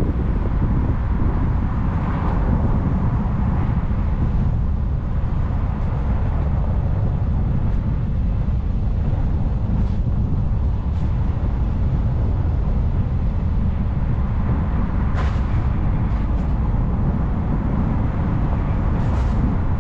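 Steady low rumble of a car driving along a road: engine, tyre and wind noise, with a couple of faint short ticks in the last few seconds.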